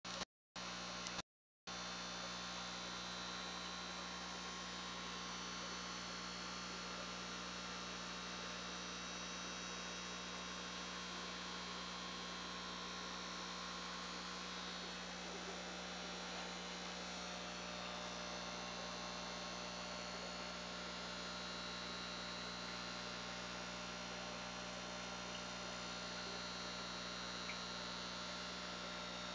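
Steady electrical hum with a faint hiss, cutting out briefly a couple of times in the first two seconds.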